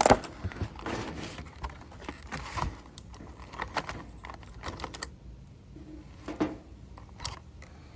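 A doorknob-and-lock set's retail packaging being opened and handled: a sharp snap right at the start, then a dense run of irregular clicks and crinkles that thins to a few scattered clicks after about five seconds.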